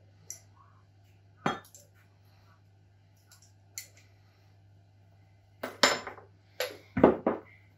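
Metal measuring spoon clinking against a glass jug as sugar is spooned in: a few scattered light clicks at first, then a quick run of louder clinks and knocks near the end.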